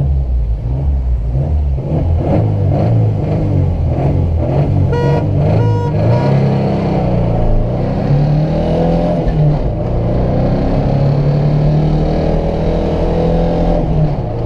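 Carbureted 1.6-litre four-cylinder engine of a 1988 Chevrolet Chevette, heard from the driver's seat, revving at the start line. A car horn beeps twice about five seconds in, then the engine accelerates hard at full throttle: its pitch climbs, falls back at gear changes, and climbs again.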